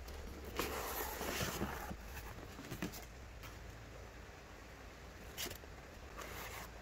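Handling noises: a rustling, scraping stretch beginning about half a second in and lasting over a second, a sharp click near three seconds, and two shorter scrapes later, over a steady low hum.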